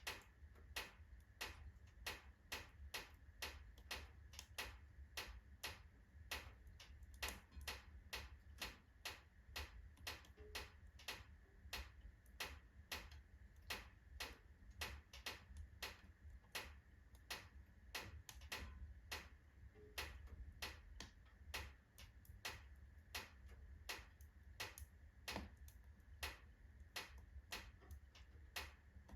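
Oak logs burning in a fireplace, crackling with sharp, irregular snaps at about two a second over a steady low rumble.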